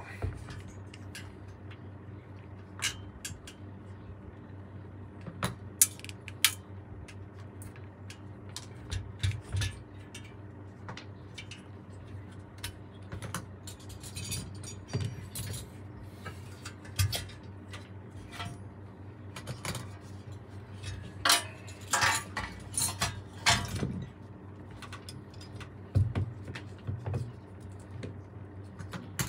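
Scattered sharp metal clinks and taps from saxophone repair work with tools and parts, busiest about three quarters of the way through, over a steady low hum.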